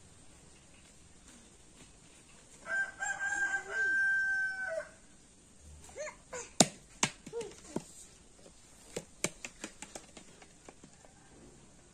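A rooster crowing once, about three seconds in, ending in a long held note. Later comes a run of sharp knocks and taps, the loudest a little past the middle.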